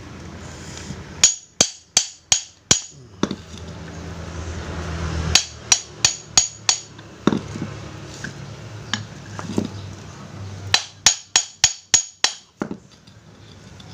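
Hammer tapping at a corner of a Sanyo water pump's pulley part to loosen it, sharp metallic strikes in quick runs of several taps with short pauses between. A faint low hum lies underneath.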